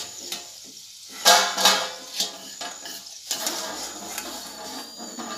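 A steel slotted spoon clanking against a steel kadai and plate, with two loud ringing clanks a little over a second in, while hot oil sizzles in the pan.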